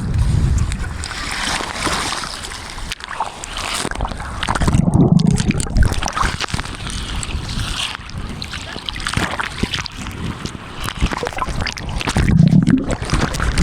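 Sea water splashing and sloshing, with heavier deep surges near the start, about five seconds in and near the end.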